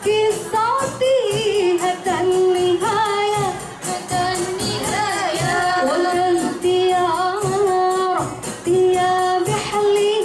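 Women singing a winding, ornamented melody with long held notes into microphones, over rebana frame drums and tambourines keeping a steady beat.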